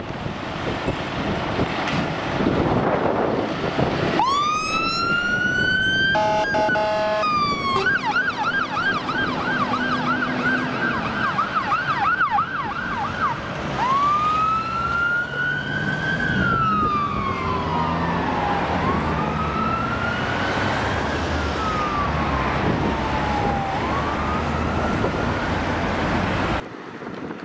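Scania P280 fire engine's siren, over the rumble of its diesel engine. It winds up into a wail about four seconds in, gives a short horn blast, switches to a fast yelp of about four sweeps a second, then returns to a slow wail rising and falling. The sound cuts off near the end.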